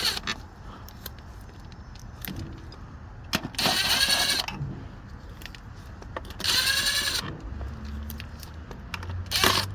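Cordless power tool spinning out the 10 mm bolts of a plastic lower oil pan: three runs of about a second each, the pitch of the motor whine bending as each bolt turns, the last starting near the end. Faint metallic clicks between the runs.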